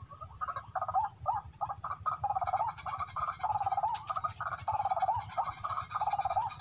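Barred rail (tikling) calling: a long, quick run of harsh, wavering notes repeated without a break, starting about half a second in.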